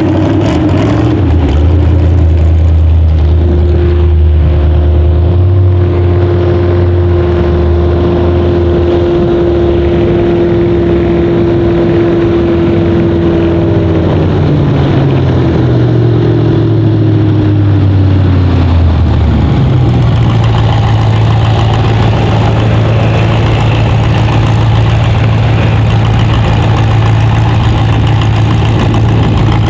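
Loud engine running hard at a steady pitch, then its pitch falls away over several seconds about halfway through and settles into a steady low drone.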